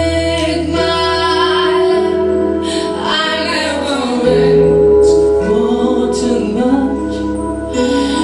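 A woman singing live into a microphone over musical accompaniment, holding long notes.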